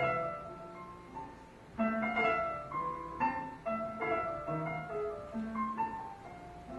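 Instrumental stage music: a held chord dies away over the first second or two, then a piano plays a slow run of single notes.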